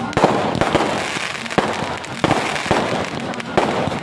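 Fireworks display: aerial shells bursting with several sharp bangs about a second apart over a dense, continuous crackle of sparks.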